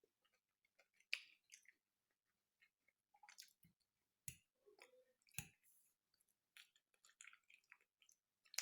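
Close-up eating sounds: soft chewing with wet mouth clicks and smacks, and a few short, duller thuds around the middle.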